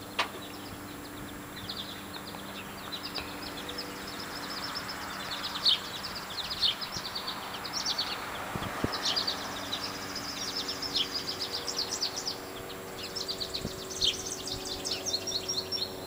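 Small birds chirping and twittering in quick runs of high notes, over a faint steady hum.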